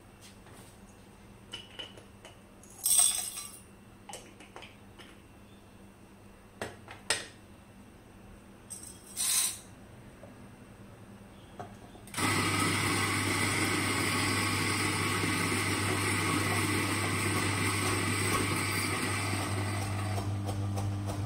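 Eureka Mignon electric coffee grinder. First come a few knocks and two short rattles as the bellows hopper is opened and loaded. About halfway through the motor starts and grinds beans steadily with a low hum, a timed grind that runs on to the end.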